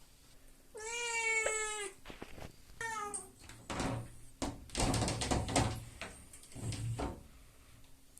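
Devon Rex cat meowing while being bathed: one long meow about a second in and a shorter one near three seconds, followed by a few seconds of noisy bursts.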